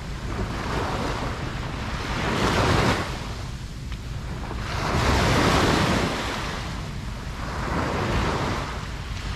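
Ocean waves breaking and washing up the beach in slow surges, a wash peaking about every two to three seconds over a steady low rumble of surf, with some wind buffeting the microphone.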